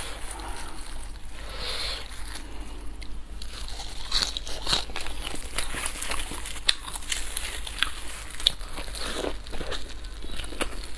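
Disposable plastic gloves crinkling as a fried flatbread is torn apart and folded. From about four seconds in come many sharp crisp crackles of crunchy bites and chewing, close to the microphone.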